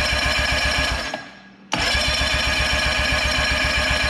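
A Tohatsu 20 hp four-stroke outboard being cranked over by its starter without firing: a steady, rhythmic chugging crank that stops about a second in, then a second crank starting just under two seconds in. It is turned over only to circulate oil into the new filter after an oil change.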